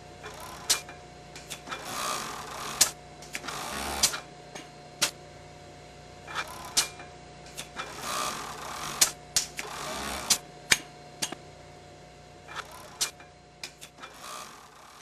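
Industrial sewing workstation for setting and taping tee shirt collars, running in two short bursts of stitching about two seconds long, each ending in a low thud, over a steady machine hum. Sharp clicks from the machine's mechanisms come scattered throughout.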